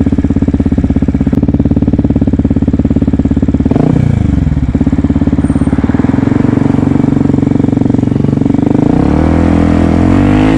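Yamaha WR125X's 125cc single-cylinder four-stroke engine running loud while riding, its pitch dipping and climbing again about four seconds in, as at a gear change, then rising near the end as the bike accelerates.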